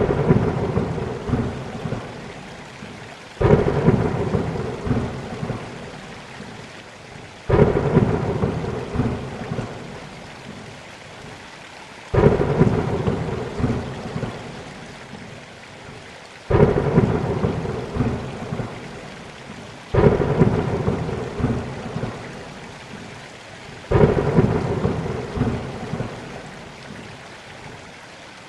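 Thunderstorm: steady rain with thunder cracking seven times, about every four seconds, each crack starting suddenly and rumbling away over a few seconds.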